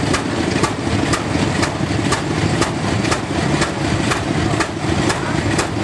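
Antique tractor engine idling steadily, with sharp, regular beats about twice a second over a low rumble.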